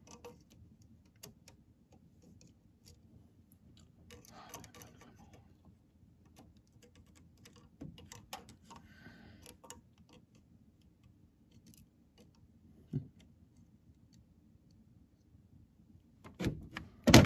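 Quiet, scattered metallic clicks and light taps of needle-nose pliers working valve keepers out of a valve spring retainer on a 12-valve Cummins cylinder head, with a couple of sharp, louder knocks near the end.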